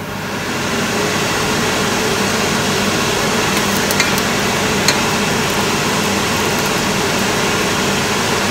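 A steady fan whir with a low hum, rising over the first second and then holding even, with two light clicks of the metal spatula on the cast-iron griddle about four seconds in and again a second later.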